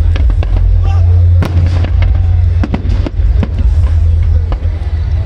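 Fireworks going off in rapid succession: sharp bangs and crackles over a continuous deep rumble of booms.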